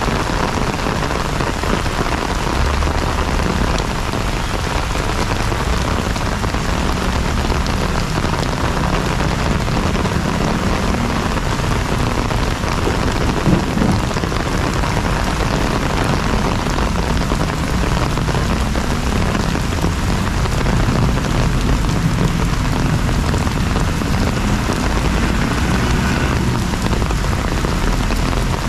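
Heavy rain pouring onto paving, grass and standing water: a loud, steady hiss of rain. One brief click about halfway through.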